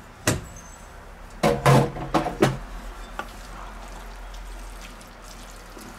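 Cookware knocking on a glass-ceramic hob: a stainless steel pot set down and a wooden spoon stirring spaghetti in a pan. One sharp knock comes first, then a quick cluster of four or five knocks about a second and a half in, and then only quieter stirring.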